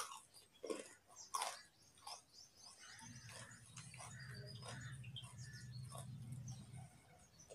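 Raw carrot being chewed with the mouth open: a few sharp, crisp crunches in the first couple of seconds, then softer scattered crackles. A low steady hum comes in about three seconds in and stays.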